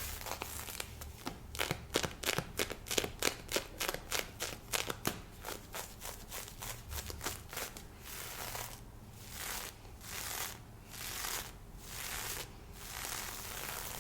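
Close-up scratching on lace fishnet stockings. Quick, sharp strokes come about three to four a second for the first half, then change to slower, longer rubbing swishes about once a second.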